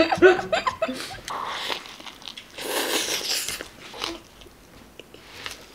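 Close-up eating sounds: a person biting into a soft tortilla wrap stuffed with bulgogi and vegetables and chewing it, with two louder bites about one and a half and three seconds in.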